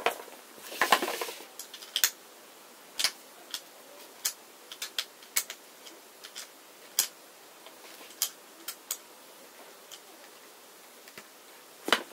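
Irregular sharp clicks and light knocks as the black plastic folding mop-mechanism legs and their metal fittings are unscrewed, handled and set down on a chipboard tabletop, with a short scraping noise about a second in.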